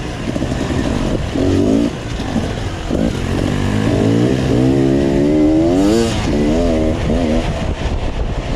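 Enduro dirt bike engine revving up and down as it is ridden over rough ground. The pitch rises and falls repeatedly and climbs to its highest about six seconds in before dropping back.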